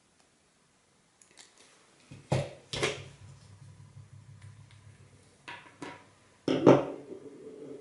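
Clicks and sharp knocks of a plastic uPVC cockspur window handle and its plastic wedges being handled and set down on a hard surface: a pair of knocks about two and a half seconds in, more at around five and a half seconds, and the loudest near the end.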